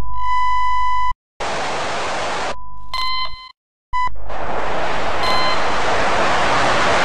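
Glitch-style intro sound effects: a steady electronic beep that cuts off about a second in, then a burst of static hiss, a second beep with crackle under it, a short silence and a brief blip, and from about four seconds in a long, loud wash of static with two faint beeps in it.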